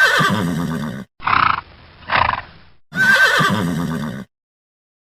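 Horse whinnying, then two short breathy blows, then whinnying again.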